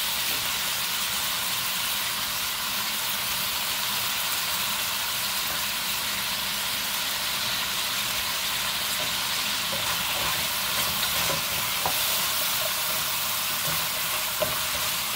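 Thinly sliced beef and onions sizzling steadily in a stainless steel skillet, with a wooden spoon stirring and knocking against the pan a few times in the second half.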